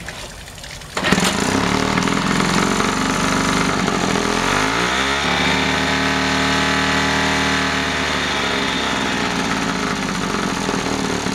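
Sears 3 hp two-stroke outboard motor starting, catching about a second in and running fast. Its engine speed drops about four seconds in and it settles into a steady run.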